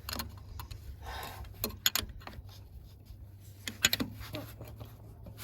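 Scattered light metallic clicks and clinks of hand tools and small hardware being handled, a few at a time about two and four seconds in, over a steady low hum.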